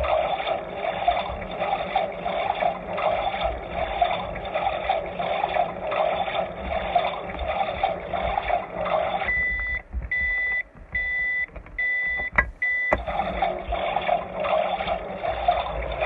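Toy washing machine's small speaker playing its recorded wash-cycle sound, a steady churning of water and drum. About nine seconds in, the churning stops for a run of about five short electronic beeps at one pitch, then starts again.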